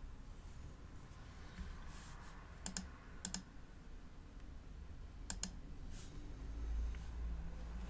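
Three sharp double clicks of button presses at a computer, over a faint steady hum; a low rumble comes in near the end.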